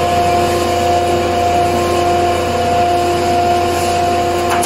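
Log sawdust making machine running steadily with no wood yet in the cutter: a continuous hum from the motor and spinning cutter rotor, holding several fixed tones. A short click near the end.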